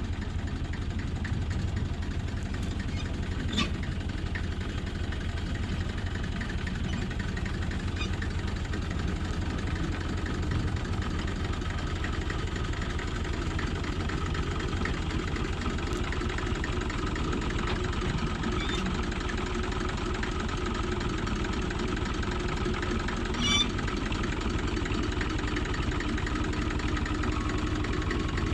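Excavator's diesel engine running steadily at idle, with a few faint clicks and a brief metallic clank near the end.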